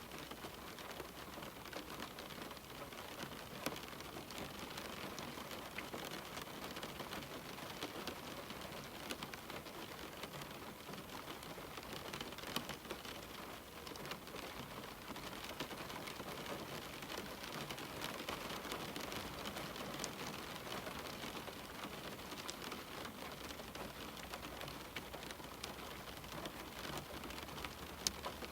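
Steady rain falling on a window, a continuous hiss with many small drop ticks and a few sharper taps.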